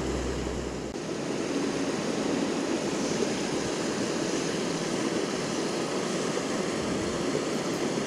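Steady rush of a flowing stream.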